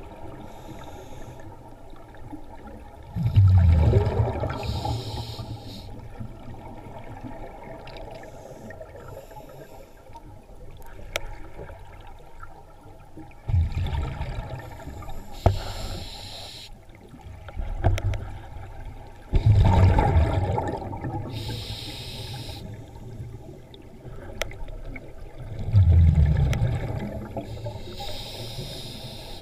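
Scuba diver breathing through a regulator underwater: about four breaths, each a hiss of inhaling through the regulator and then a low rumble of exhaled bubbles.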